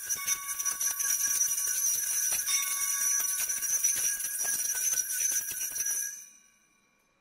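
Hand-held altar bells (Sanctus bells) shaken in a rapid, continuous jingle, rung to mark the elevation of the chalice at the consecration. The ringing cuts off about six seconds in.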